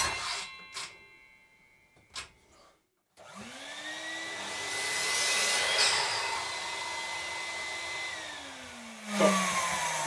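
Table saw switched on, its motor rising to speed and running steadily, louder for a moment as it cuts through a length of wooden lath, then winding down near the end. A few light knocks come before it starts.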